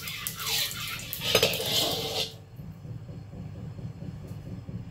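Metal spatula scraping and swishing around the inside of an oiled wok, spreading the oil, for about two seconds, then it stops. A low steady hum carries on underneath.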